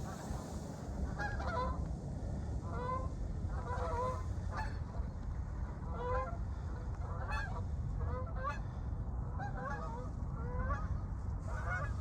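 Geese honking, a dozen or so short calls spread through, over a steady low rumble.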